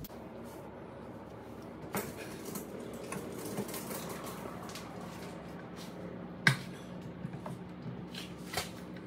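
Metal clinks and knocks as the trailer's hitch hardware is handled, with one sharp clank about six and a half seconds in. A faint low hum comes in about halfway through.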